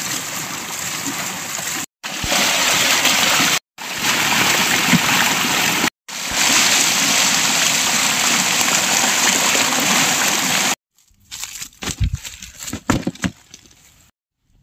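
Running water heard as a steady hiss-like rush, in several short clips joined by abrupt cuts. About eleven seconds in it gives way to quieter, scattered knocks and rustles.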